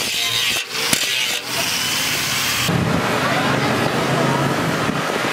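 Angle grinder with an abrasive disc grinding down weld seams on a steel motorcycle fuel tank, easing off the metal briefly twice. The grinding cuts off abruptly under three seconds in, leaving a steady rushing background.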